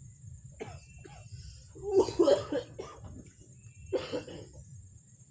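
A person coughing twice: a harder cough about two seconds in and a shorter one near four seconds.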